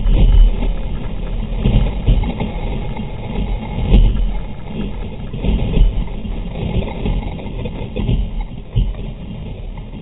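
Water rushing and splashing around a sea kayak as it surfs through breaking waves, with heavy wind buffeting on the camera microphone. A loud, low rumble that swells and eases in uneven surges.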